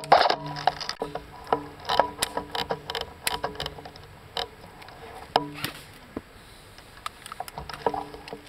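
Airsoft guns firing single semi-automatic shots at irregular intervals: sharp clacks, several with a short low hum. The clacks come thick at first and thin out after about four seconds.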